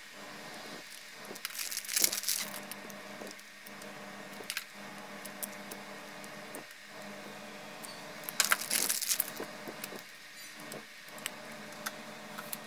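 Small plastic clicks and scrapes as red plastic cases of Dorco 9 mm snap-off cutter blades are opened and the thin steel blades are taken out and set down on a tabletop. Two louder noisy bursts of about a second each come about two seconds in and around eight and a half seconds in.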